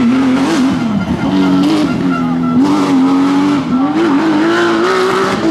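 Porsche 911 GT3 RS rally car's flat-six engine revving hard, its pitch dipping and climbing with the throttle, with tyre skid noise.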